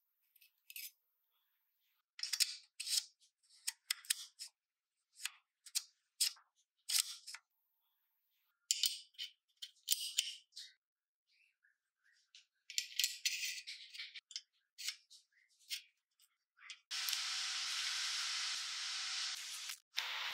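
Steel tube parts clicking and scraping against each other as they are slid together and fitted in a vise: scattered sharp metallic clicks with pauses between. About three-quarters of the way in, a wire-feed (MIG) welder's arc starts, hissing steadily for about three seconds, stops briefly, and starts again.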